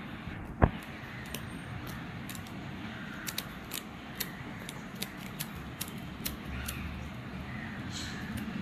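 A GoPro Hero 10 action camera being handled: one sharp click about half a second in, then a string of light clicks and taps of its plastic body and mount under the fingers.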